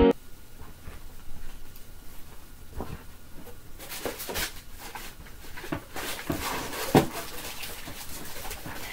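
Rustling and light knocking of hands rummaging in a cardboard subscription box, a scattered run of small clicks and rustles that grows busier after about three seconds, with one sharper knock about seven seconds in.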